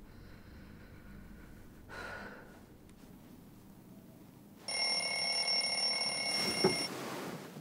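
Bedside digital alarm clock going off: a sudden steady electronic ring of a few high tones, lasting about two seconds and cut off with a sharp knock.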